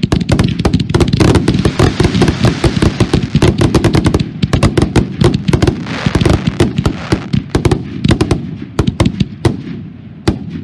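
Pyro Demon aerial fireworks going off in a dense barrage: rapid overlapping shell bursts and reports with crackling stars. The reports thin out near the end.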